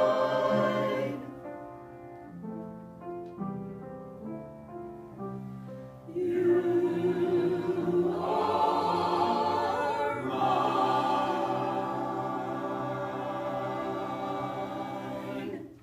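Choir singing. It drops to a quiet passage after about a second, comes back in loud about six seconds in, and holds a long chord that stops just before the end.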